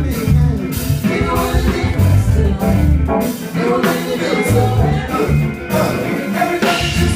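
Live band music: a steady bass line and drum beat with instruments playing over them.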